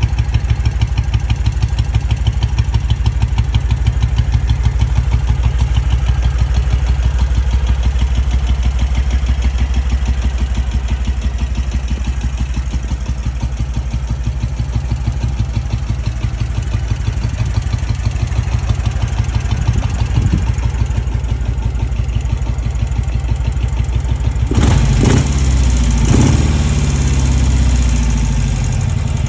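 Zündapp KS 601's flat-twin four-stroke engine idling with an even, steady beat, then revved in a few quick throttle blips near the end.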